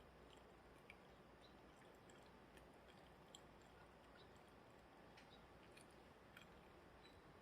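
Near silence: faint room tone with a few scattered small clicks.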